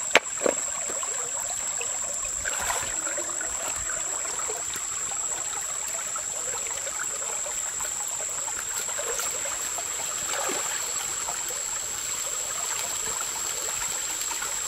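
Shallow stream running steadily over rocks, with a couple of sharp knocks near the start.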